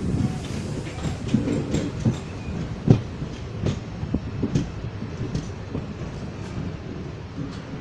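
Moving passenger train heard from its open window: a steady rumble of wheels on track with irregular clacks over rail joints, the sharpest about three seconds in.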